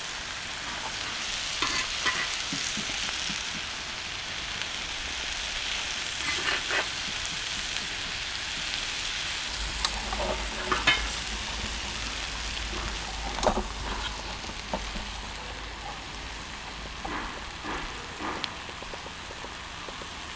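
Liver, potatoes and peppers sizzling on a sac griddle over charcoal, with a metal spatula scraping and clinking on the griddle now and then as the food is scooped off.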